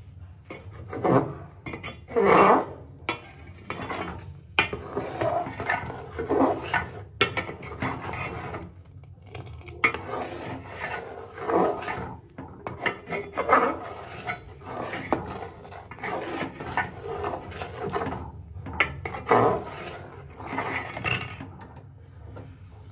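Metal ladle scraping and stirring around the bottom and sides of an aluminium pot of milk, in repeated rasping strokes roughly one a second.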